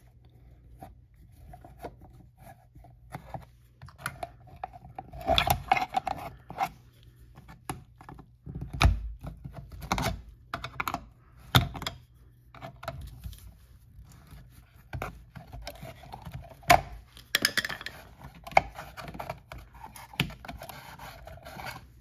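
Screwdriver working the mounting screws of an old duplex wall outlet: scattered clicks, scrapes and knocks of metal on metal, some much sharper than others. Near the end, the outlet is pulled out of its metal wall box.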